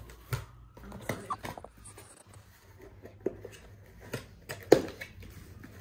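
Handling noises: scattered light taps, clicks and rustles, with one louder knock about three quarters of the way through.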